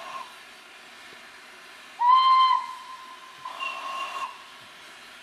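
Steam locomotive whistle sounded in short blasts: one cutting off just after the start, a loud blast about two seconds in that drops to a quieter held note, and another about three and a half seconds in. A low steady rumble continues underneath.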